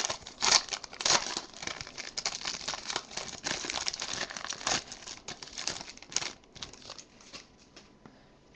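Foil wrapper of a trading-card pack crinkling and tearing as it is ripped open by hand. The crackling thins out and stops about six or seven seconds in.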